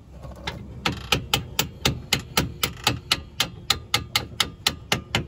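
A hand tool working a suspension bolt on the coilover's lower mount, giving a long, even run of sharp metallic strikes at about four a second that starts about a second in.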